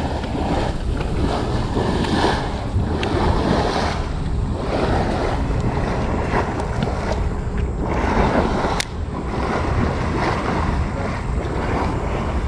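Wind buffeting the microphone over the rush of strong river current around the boat, a steady, rough noise. One sharp click about nine seconds in.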